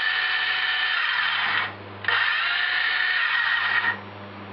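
DeWalt 14-volt cordless circular saw, run on a 12-volt battery, running with a steady high whine. Its motor winds down and stops about one and a half seconds in, starts again and winds up about two seconds in, then stops about four seconds in.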